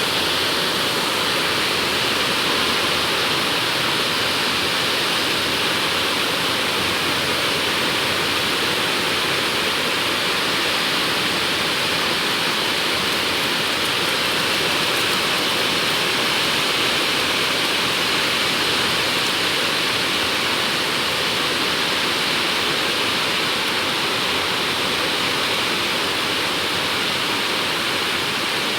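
Heavy tropical downpour: dense rain pouring down in a steady, unbroken hiss.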